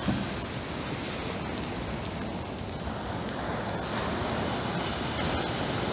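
Steady wash of heavy storm surf with rain falling, an even, unbroken noise.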